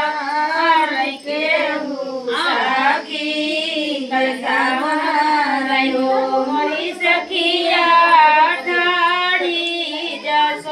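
Women singing a sohar, the Hindi/Bhojpuri folk song for a child's birth, unaccompanied, with long wavering held notes and brief breaths between phrases.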